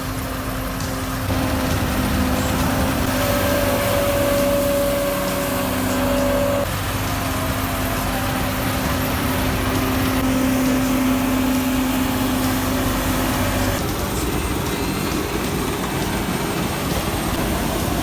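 Steady running of a large farm machine's engine, such as a combine harvester working wheat, with droning tones that shift a few times.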